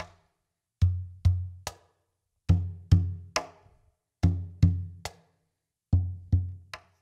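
Cajón played in a steady groove: two deep bass strokes in the centre of the wooden front, then a sharp, bright snare slap near the top edge played with the right hand. The three-stroke figure repeats four times, about once every 1.7 seconds.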